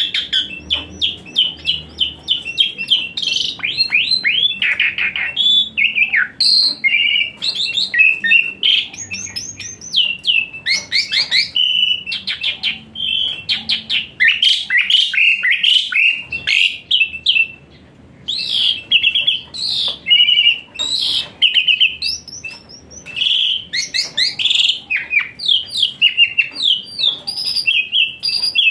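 Jalak suren (pied starling) singing a long, busy song of quick chirps, whistles and harsh squawky notes. It fires off fast strings of repeated notes, the 'tembakan' bursts of this bird's song, with hardly a pause.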